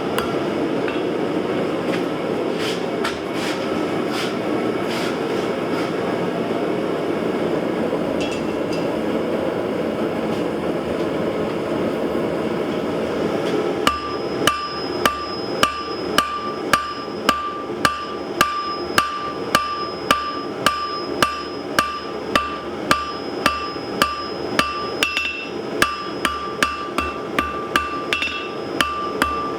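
Forging hammer blows on an anvil. For the first half there is a steady rushing noise with scattered light taps. About halfway in it changes abruptly to regular hammer strikes, a little under two a second, each with a bright metallic ring from the anvil.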